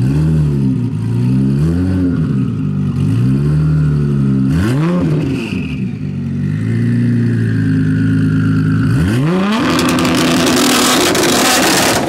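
Heavily tuned twin-turbo V6 of a 1750 hp Nissan GT-R revved hard while standing still: several rising and falling revs, a short steadier stretch, then about nine seconds in a steep climb to high revs held at full, loud noise before falling away at the end.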